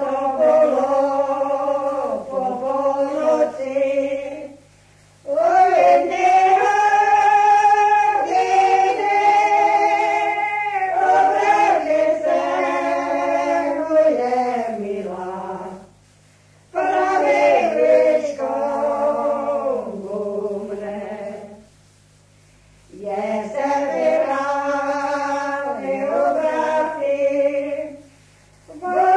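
Choir singing in long phrases with brief pauses between them.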